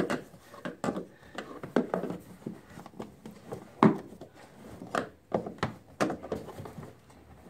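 Plastic panels of an Aerobin 400 composter knocking and clicking irregularly as they are pried and worked loose with a flathead screwdriver. One sharper knock comes a little before four seconds in.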